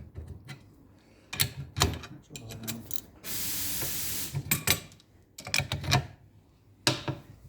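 Scattered clinks and knocks of hand tools on metal parts, with one steady hiss about three seconds in that lasts a little over a second, like a spray or a short blast of air.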